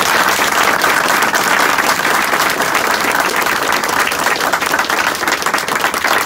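A small group of people applauding, a dense and steady clatter of hand claps that eases slightly near the end.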